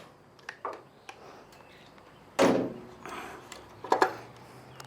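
Scattered clicks and knocks of tools and parts being handled, with one louder knock about two and a half seconds in and a few sharp clicks near the end.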